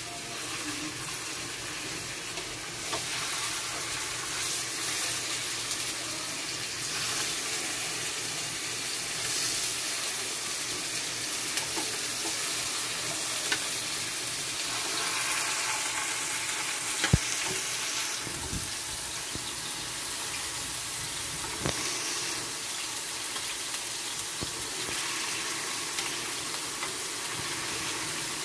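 Slices of pork tenderloin sizzling steadily in hot oil in a nonstick frying pan as they are laid in and fry. A few sharp clicks sound over the sizzle, the loudest about two-thirds of the way through.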